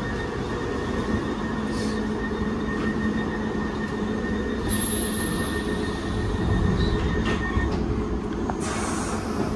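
London Underground Piccadilly line train running between stations, heard from on board: a steady low rumble with a constant hum, and two spells of high-pitched hiss, one about halfway and one near the end.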